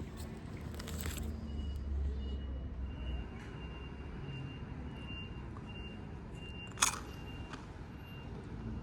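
A repeating high electronic beep over a low rumble of traffic, with one sharp click about seven seconds in.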